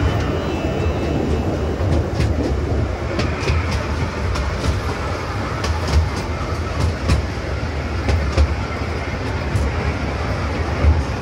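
Tourist train running along its track: a steady low rumble of wheels on rail, with scattered clicks and clacks.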